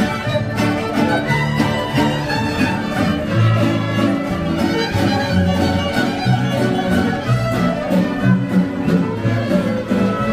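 Folk string band of violins and guitars playing a lively tune, with a steady rhythmic bass line under the fiddle melody.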